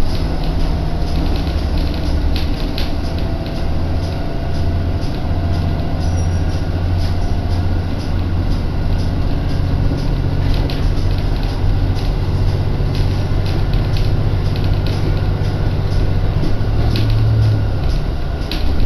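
Inside a moving local train: a steady low running drone with clicks of the wheels passing over rail joints and track gaps. The drone's pitch shifts up for about a second near the end.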